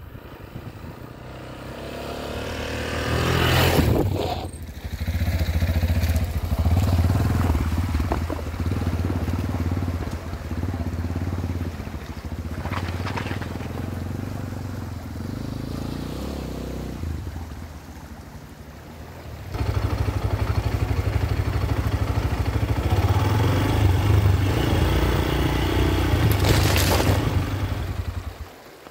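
A vehicle driving: steady low engine and road rumble, easing off briefly and then growing louder about two-thirds of the way through.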